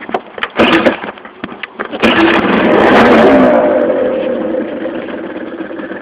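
Stock Vespa LX 50 2T's 49 cc two-stroke single-cylinder engine starting: a short burst of noise about half a second in, then about two seconds in it catches, revs up and drops back to a steady idle.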